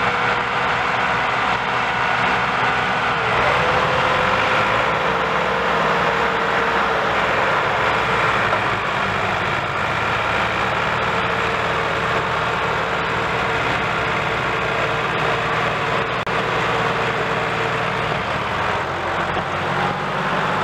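Massey Ferguson tractor diesel engines running hard under heavy load as the tractors strain against each other and a loaded sugarcane trolley. It is a loud, steady labouring note whose pitch sags slightly a few times.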